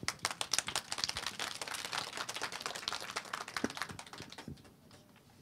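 Audience applauding: a patter of many quick claps that fades out about four and a half seconds in.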